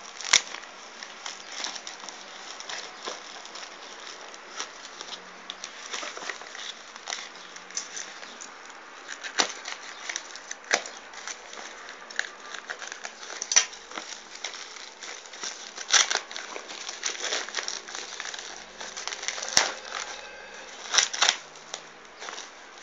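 Packaging being handled while unboxing a charger: continuous rustling and crinkling with many scattered sharp clicks and taps.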